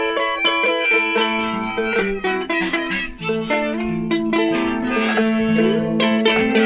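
Acoustic guitar strummed alongside a harmonica played from a neck rack, holding notes and bending them upward a couple of times, with a ukulele plucked underneath.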